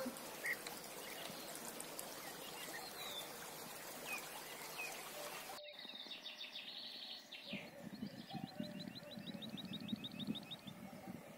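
A steady hiss of trickling water with a few faint bird chirps, which breaks off suddenly about halfway through. Then songbirds sing: a short warbling phrase and then a fast run of repeated high notes, over low rustling.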